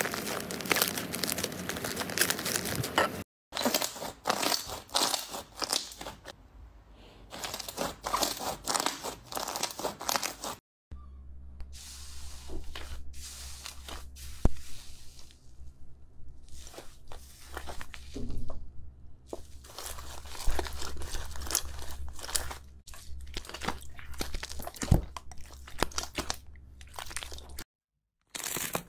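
Hands squeezing, stretching and pressing slime: sticky crackling and tearing sounds, first from a soft yellow slime that has partly melted and turned sticky, then from a fluffy white cloud-type slime pressed in a bowl. Brief silences break it where the clips change, and a steady low hum runs under the middle clip.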